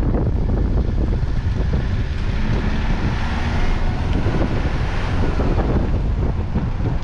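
Wind buffeting the microphone of a moving car, over the steady low rumble of the car and its tyres on a rough dirt road.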